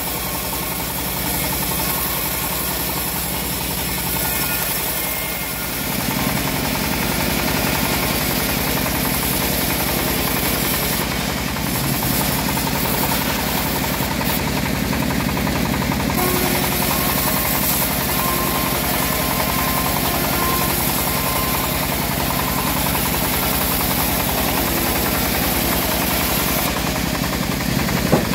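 Homemade band sawmill running and sawing through a teak log: a steady machine hum with the blade's cutting noise, growing louder and heavier about six seconds in and then holding steady.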